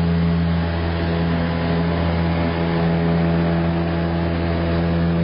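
An engine running steadily at one constant speed, an even drone with no change in pitch.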